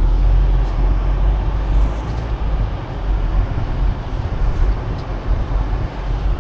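Vehicle engine and tyre rumble heard from inside the cab as it drives off, a steady deep rumble, slightly louder in the first second or so.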